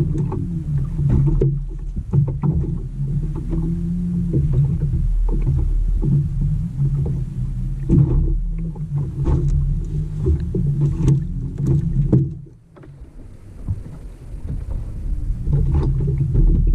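A motor hums low and steady aboard a small boat, with scattered knocks and clicks. The hum drops away for about a second and a half around twelve seconds in, then starts again.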